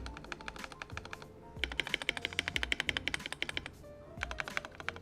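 Fast typing on an Akko ACR81 mechanical keyboard with stock KTT Sea Salt Lemon linear switches and a tape-modded PCB: a rapid clatter of key clicks in two flurries with a short pause between them. Background music plays underneath.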